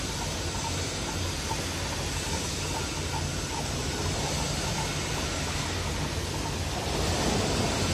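Electroslag welding in progress: a steady hum with a broad hiss over it, and faint ticking about three times a second in the first half. The noise swells slightly near the end.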